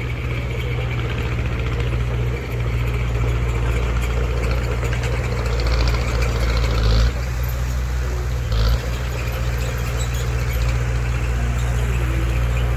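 Diesel engine of heavy earthmoving machinery running steadily, with two brief louder moments, about seven and nine seconds in.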